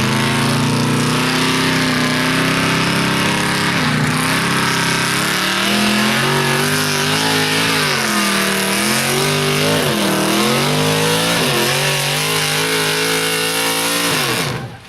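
Truck engine at full throttle during a truck pull. It holds steady at first, then its pitch dips and rises again several times, and it stops suddenly near the end.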